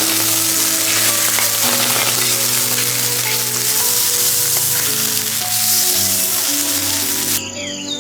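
Food frying in a hot pan with a steady sizzle, over background music; the sizzling cuts off abruptly near the end.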